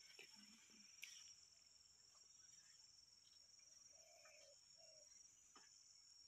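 Faint, steady high-pitched insect trilling, with a few faint clicks and knocks.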